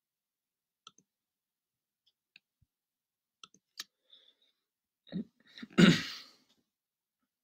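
Several faint clicks, then about six seconds in a short cough from a man close to the microphone, the loudest sound.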